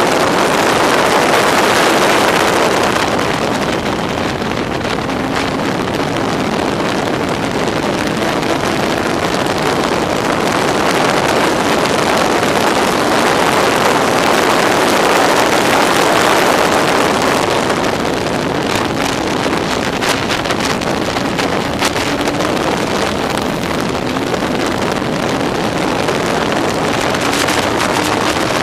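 Yamaha R1 inline-four motorcycle engine of a Locost racing car running hard at racing speed, heard onboard under heavy wind noise on the microphone; its pitch climbs in several pulls through the gears.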